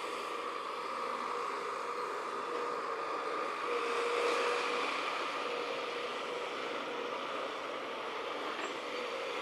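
Heavy construction machinery running steadily, with a wavering whine over its engine noise that swells slightly about four seconds in.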